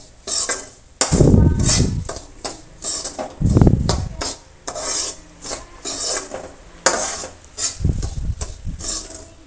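Metal spatula scraping and stirring dry roasted semolina and gram flour around a metal kadhai in repeated strokes, with a few duller thumps.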